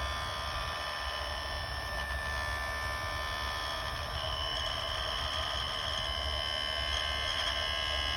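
Kenmore dishwasher circulation pump running with a steady electric hum and a high-pitched whine, and a higher tone joins about four seconds in. The whistling whine is the fault noise the dishwasher has been making, which points to a failing circulation pump.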